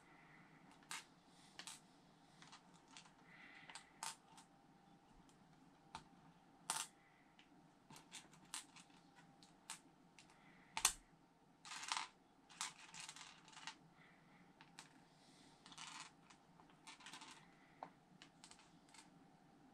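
Small plastic Lego pieces clicking and clattering as they are picked up, sorted and set down by hand on paper over a table, in sparse irregular ticks with a few brief rustles; one sharper click about eleven seconds in.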